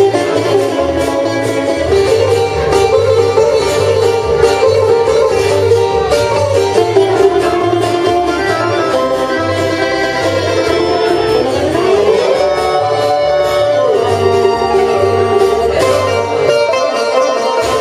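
Instrumental break of a Greek laïko song played live on bouzouki, acoustic guitar and accordion, with melody lines that slide between notes over a steady low beat.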